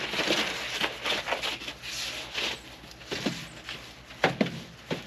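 Irregular rustling, scraping and knocking from handling a long rubber propane hose under a van, with a few short squeaks a few seconds in.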